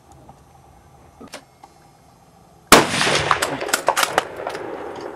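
A single hunting rifle shot from a scoped rifle, a sudden loud crack a little under three seconds in, followed by about two seconds of fading noise with scattered clicks.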